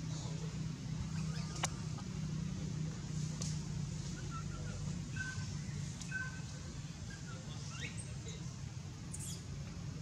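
Outdoor background: a steady low hum, with a few faint short chirps in the middle and scattered light clicks.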